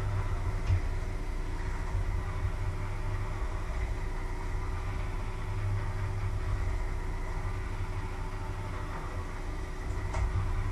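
A steady low hum and rumble, even throughout, with a short light knock near the end.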